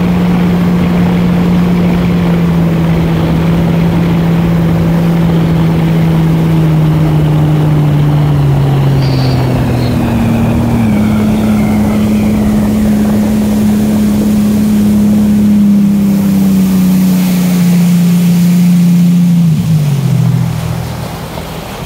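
Jet ski engine running hard at speed over a steady hiss of water and wind, its pitch sagging slowly, with a step up about halfway through. About twenty seconds in the engine note falls away and the sound drops as it throttles back.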